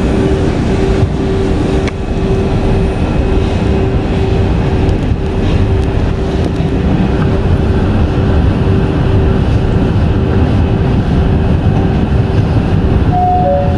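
Electric commuter trains running at speed on parallel tracks: a dense, steady rumble of wheels on rail with a constant droning tone from the running gear.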